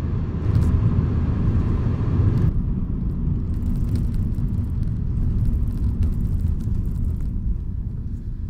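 Road and engine noise inside a moving car's cabin, a steady low rumble. A higher hiss above it cuts off suddenly about two and a half seconds in.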